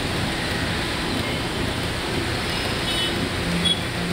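Heavy city traffic on a rain-soaked road: a steady wash of tyre hiss on wet asphalt mixed with engines. A few brief high-pitched squeaks come about three seconds in.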